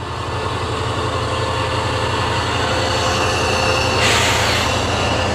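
QSY-class diesel-electric locomotive pulling away from the platform at walking pace. Its engine runs with a steady low drone that slowly grows louder as it draws its coaches past. A short hiss comes about four seconds in.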